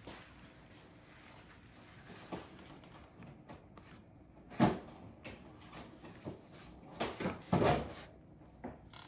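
Bully puppies playing: a few sudden knocks and scuffles. The sharpest comes about four and a half seconds in, and a cluster of knocks plus a longer scuffle follow around seven to eight seconds in.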